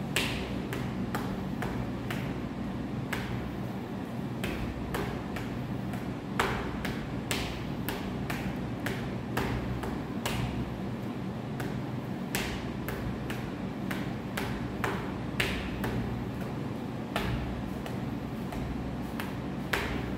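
Phoenix-eye fist (single extended index knuckle) striking the round pads of a wall-mounted Chu Gar striking target, pads cut from shoe heels: a long run of sharp, irregular taps, about one to two a second, over a steady low hum.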